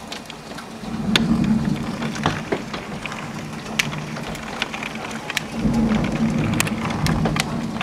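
Golf-ball-sized hail hammering the roof, windows and ground in a downpour: sharp, irregular cracks of ice striking over a steady hiss of heavy rain. A low rumble swells twice, about a second in and again near the end.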